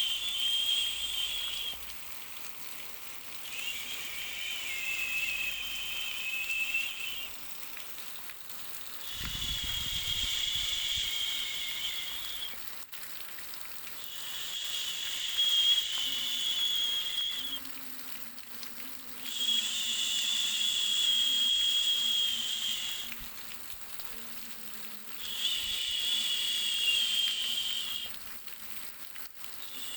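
Baby white-noise track: a hiss with a high whistling tone that swells and fades in waves, each lasting about three to four seconds and coming every five or six seconds, over a steady low hiss.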